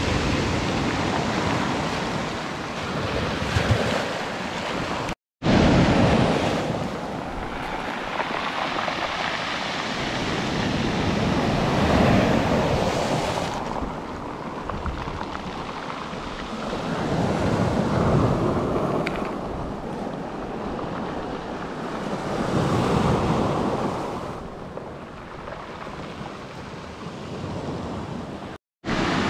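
Sea waves breaking and washing up the beach, swelling and fading about every five or six seconds, with wind buffeting the microphone. The sound cuts out abruptly twice for a moment.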